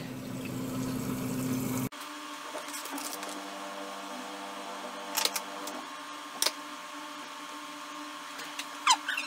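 Steady mechanical hum that cuts off abruptly about two seconds in, giving way to a quieter steady electrical hum with a few short sharp clicks.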